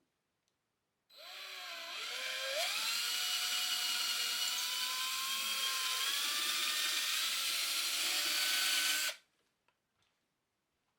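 Black & Decker 20V MAX cordless drill boring a hole. The motor's whine rises in pitch as it spins up about a second in, then runs steadily for about seven seconds and stops suddenly.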